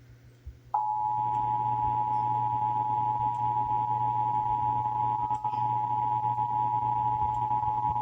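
Emergency Alert System attention signal: two steady tones of 853 and 960 Hz sounding together. It starts abruptly just under a second in, over a steady low hum.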